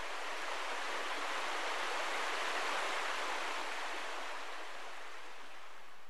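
Steady rushing of running water, swelling slightly in the middle and easing off near the end.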